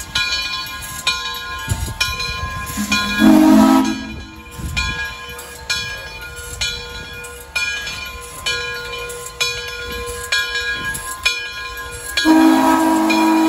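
Steam locomotive Frisco 1630, a 2-10-0, ringing its bell steadily, about two strokes a second. Its steam whistle gives a short toot about three seconds in and starts a longer blast near the end.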